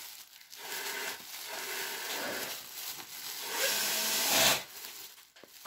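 Thin plastic bag rustling and crinkling as hands untie and pull open its knotted top, loudest for about a second near the end.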